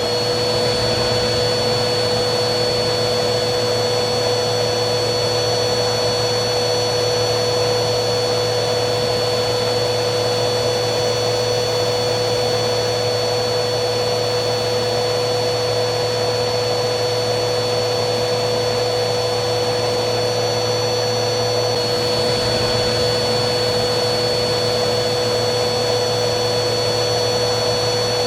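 Vacuum cleaner running steadily: a constant rush of air with a steady motor hum and a high whine above it.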